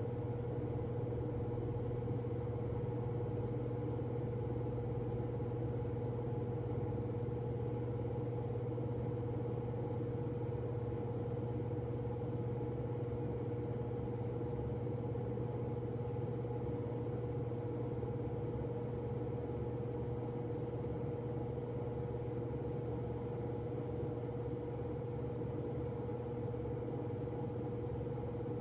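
Steady low mechanical hum, with a fainter higher tone held over it.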